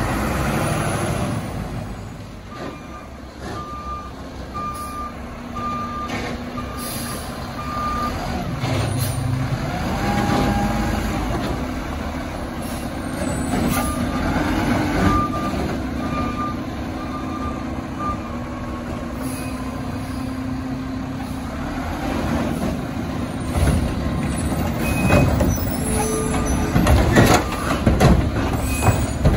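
Mack garbage truck with a Curotto Can arm running, its backup alarm beeping steadily about once a second in two spells. Near the end come a run of knocks and clatter as the automated arm lifts a cart and tips it into the hopper.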